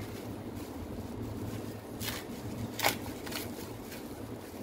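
Handling noise from work on a screwdriver: several short clicks and knocks, the loudest about three seconds in, over a steady low hum.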